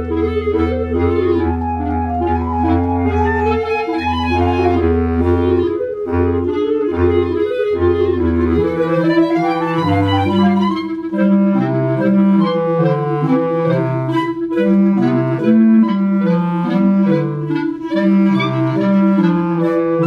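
A clarinet trio of two B-flat clarinets and a bass clarinet playing. Low notes are held for the first eight seconds or so. Then comes a rising glide, after which one long steady note sounds above a line of shorter, lower notes that step up and down.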